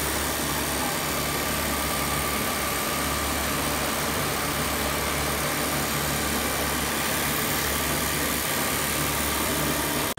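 Juki industrial sewing machine running steadily, stitching hair weft, with a constant low hum under an even, unbroken whirr.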